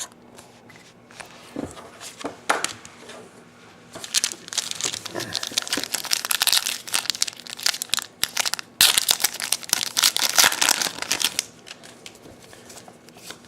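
Trading-card pack wrappers crinkling and crumpling in the hands, in two long stretches with a brief break in the middle, after a few light handling clicks at the start.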